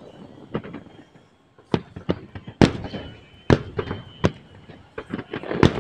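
Fireworks salute going off: a rapid, irregular run of about ten sharp bangs, some of them loud.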